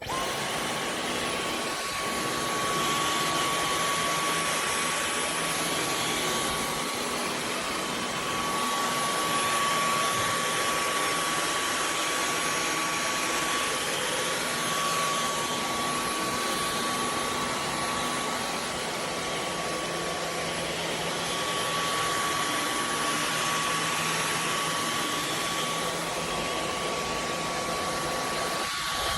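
Dyson V15 Detect Plus cordless stick vacuum switching on and running steadily: a rush of air under a thin, high, steady whine from its motor.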